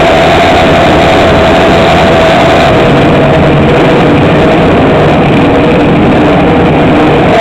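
Bimota YB4ei's inline-four engine idling steadily, heard close up and loud.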